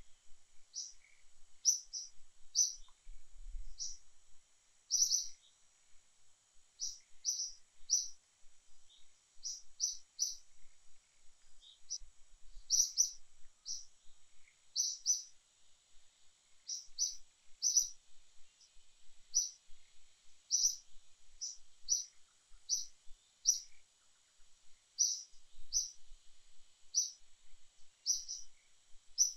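A small bird chirping: short high-pitched chirps, often two or three in quick succession, repeated every second or so over a faint steady high hiss.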